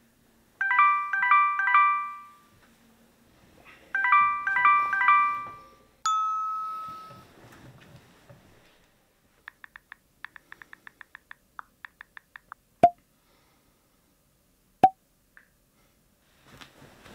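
Smartphone alarm tone: a short chiming melody played twice, then a single notification chime about six seconds in. A quick run of soft on-screen keyboard clicks follows, then two sharp message pops about two seconds apart.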